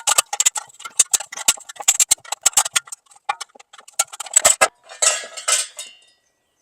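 Screwdriver prying the snap ring out of a Mopar Sport hubcap: a rapid, irregular run of metal clicks and taps, then a longer metallic scraping rattle about five seconds in.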